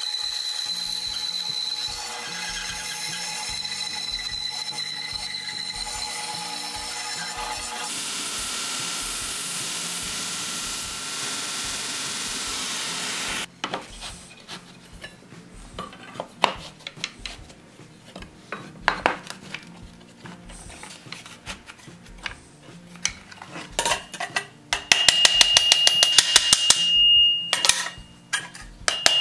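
A band saw runs steadily, cutting a pine plank, for the first half, then stops abruptly. Scattered knocks of wooden pieces being handled on a workbench follow. Near the end comes a rapid, even run of ringing hammer strikes on an iron strap clamped to the wood on an anvil, with quiet background music with a steady beat underneath.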